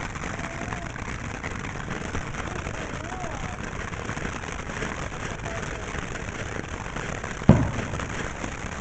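Ground fountain firework spraying sparks with a steady hiss. A single sharp bang comes about seven and a half seconds in.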